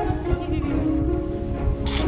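Background music with held notes, and a short hissing hit near the end.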